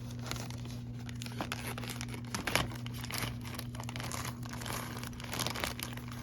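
Packaging being opened by hand: irregular crinkling and tearing of the wrapping around a parcel.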